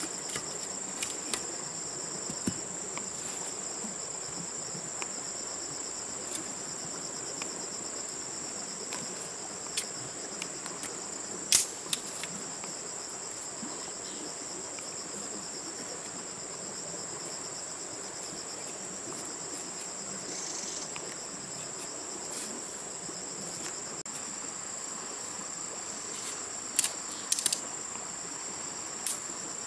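Steady high-pitched insect chorus, with a few sharp knocks of bamboo poles being handled: the loudest about twelve seconds in and a short cluster near the end.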